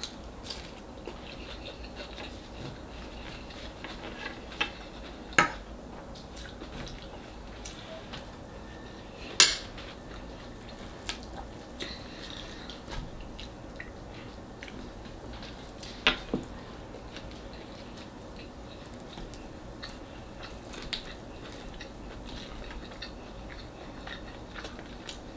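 Tableware clinks while eating: a fork and fingers tapping and scraping against ceramic plates and a small sauce bowl. Short sharp clicks come a few seconds apart over quiet room tone, the loudest about five and nine seconds in.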